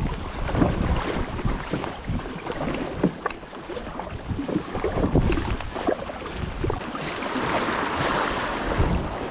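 Wind buffeting the microphone over water sloshing around a kayak, with scattered knocks and thumps against the hull; a louder rush of hiss comes near the end.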